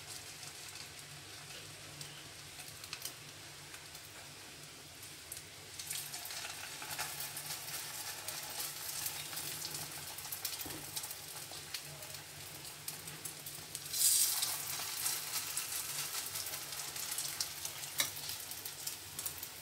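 Oil frying in a nonstick pan: a faint crackle at first, then louder sizzling as spoonfuls of a corned beef, egg and corn mixture go into the hot oil, about six seconds in and again, more strongly, around fourteen seconds, with scattered sharp pops.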